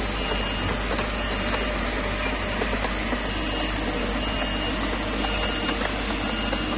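Small bulldozer's diesel engine running steadily under load, with a constant clatter of tracks and stone and short high squeaks recurring about once a second.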